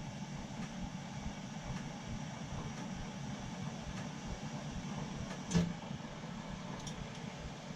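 Steady low hum of running boiler-room equipment, with one sharp knock about five and a half seconds in.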